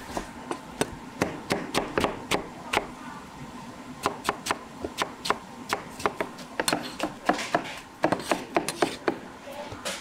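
Cleavers chopping cabbage on a thick round wooden chopping block: an uneven run of sharp knocks, about two to three a second, with a short pause about three seconds in.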